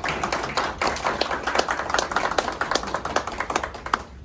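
A small audience clapping, with one pair of hands close by standing out as sharp, loud claps among the rest.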